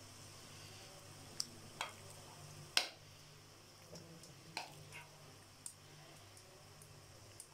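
Battered chicken pieces frying in a wok of hot oil on low heat: faint, scattered crackles and pops, the loudest about three seconds in, over a low steady hum.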